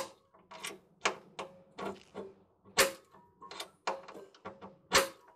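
Automatic center punch snapping as it fires against a steel car floor pan, punching pilot dimples into the centres of spot welds. There are three sharp snaps, at the start, near three seconds and near five seconds, with lighter clicks and taps of the tool on the sheet metal between them.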